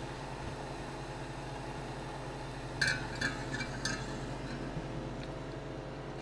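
Kitchenware clinking: a few light, quick clinks about three seconds in, over a steady low hum.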